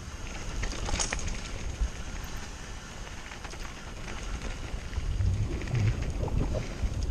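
Mountain bike riding on a trail: wind rush on the microphone over tyre and frame rattle, with a sharp clack about a second in and a few low thumps near the end.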